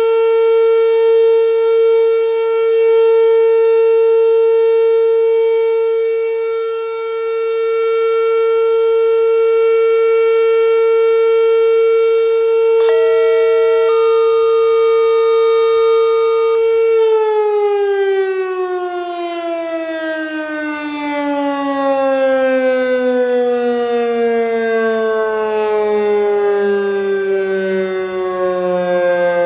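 Fedelcode Model 5 eight-port outdoor warning siren sounding a steady alert tone. About seventeen seconds in, it stops holding pitch and slowly falls as the siren winds down at the end of its alert.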